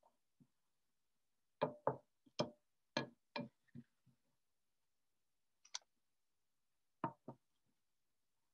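A spoon and a cornstarch container knocking and tapping as cornstarch is scooped into a mixing bowl: a quick run of about seven sharp knocks, a single one a little later, then two more near the end.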